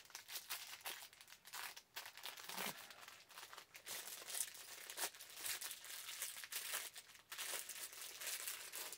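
Packaging crinkling and rustling as it is handled and opened, in a run of irregular crackles.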